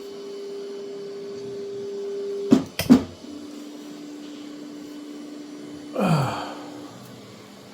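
Elegoo Neptune 4 Max 3D printer's stepper motors whining steadily as the axes move at the start of a print. Two sharp clicks come about two and a half seconds in, and then the whine carries on at a lower pitch. There is a brief whoosh with a falling pitch around six seconds.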